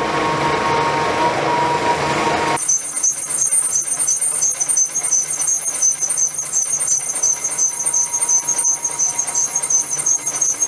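Metal lathe turning a forged steel flange, the cutting tool working against the spinning workpiece. At first it gives a noisy rush. About two and a half seconds in it switches abruptly to a high, steady squeal of tool on metal.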